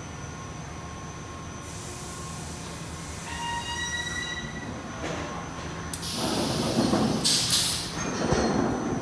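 Car wash polish tunnel equipment running: a steady machinery hum, with a hiss and a brief high squeal in the first half. From about five seconds in, a louder rushing noise comes in.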